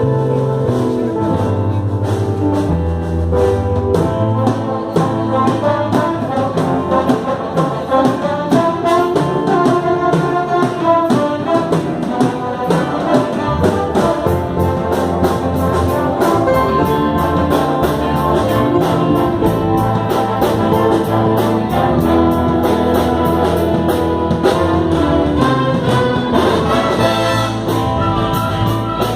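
Band playing instrumental music, with trumpets and trombones carrying the melody over a bass line and a steady beat.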